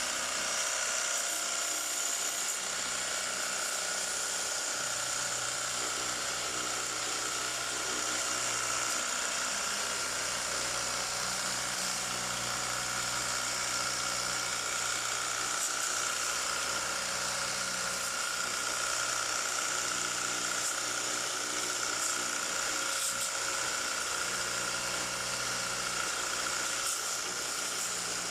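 Small electric pressure washer running steadily, a motor whine with a high hiss over it.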